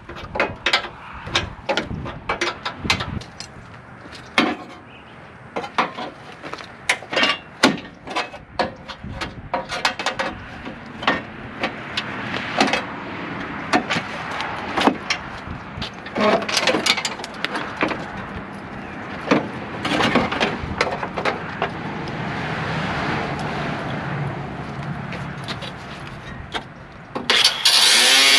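Hand tools and loose metal parts clanking and knocking in irregular strikes while a truck's front end is taken apart. About a second before the end a power tool starts running loudly, its pitch wavering.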